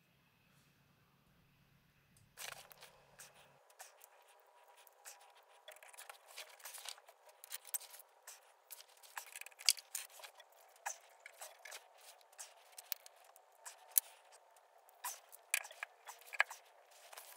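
Light, irregular clicks and scrapes of small metal parts being handled as washers and a nut are fitted by hand onto the end of the swing lever shaft in a VW T2 bus front axle. The sounds start about two seconds in, after near quiet.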